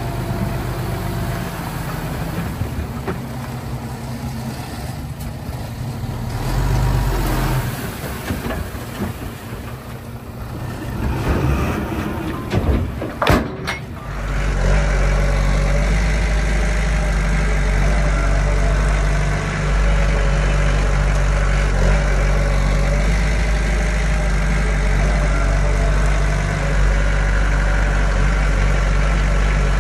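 Diesel engine of heavy earthmoving machinery running, uneven at first with a few sharp knocks, then changing suddenly about halfway to a steady, louder low drone.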